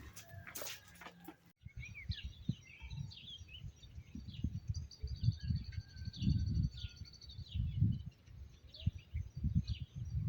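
Small birds chirping and calling, with a fast trill lasting a few seconds in the middle, over low rumbling gusts of wind on the microphone. About a second and a half in, a short stretch of clattering cuts off suddenly before the birdsong begins.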